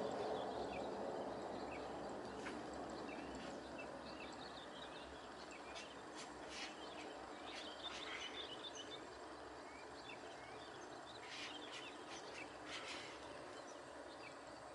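Jet airliner's engines heard as a steady noise that fades as the plane climbs away after takeoff, while small birds chirp.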